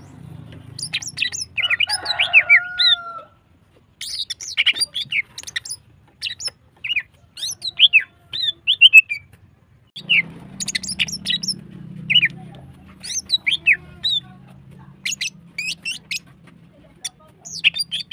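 Female greater green leafbird (cucak ijo) calling in fast runs of short, down-slurred chirps mixed with sharp high notes, in bursts with brief pauses between them. A lower, drawn-out call sounds about two seconds in, and a faint low hum lies under the second half.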